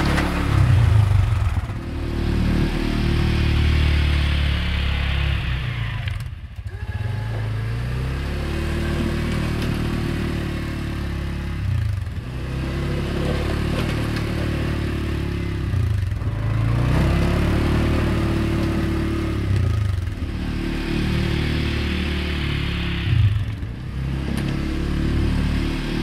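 CFMoto CForce 520 ATV engine working under load while snowplowing. It is held at steady revs for a few seconds at a time, and the throttle is let off sharply about every four seconds before it pulls again.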